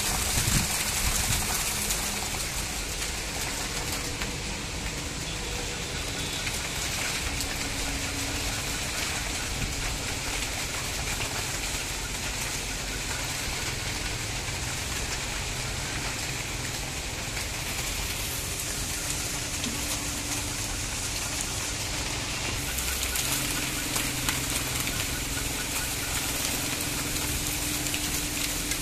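Monsoon rain falling steadily, a dense even hiss, with faint low humming tones underneath now and then.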